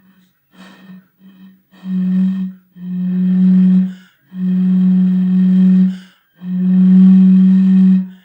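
An empty bottle sounded by blowing across its neck: a few short, weak puffs that barely sound, then four long, steady hoots on one low note, each stronger than the first attempts. The weak start comes from blowing at the wrong angle, the teacher explains.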